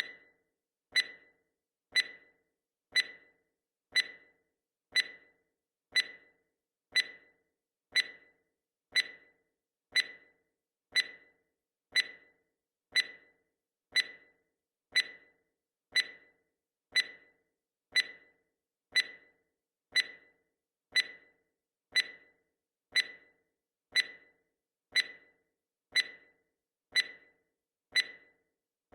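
Countdown timer sound effect: a short, sharp clock-like tick once every second, evenly spaced, each dying away quickly.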